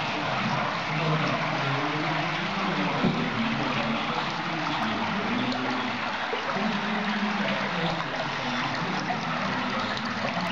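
Water welling up from the drilled top of a green fuchsite fountain stone and running down its sides, a steady trickling and splashing.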